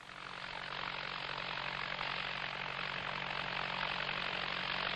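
Farm tractor engine running steadily, fading in over the first second.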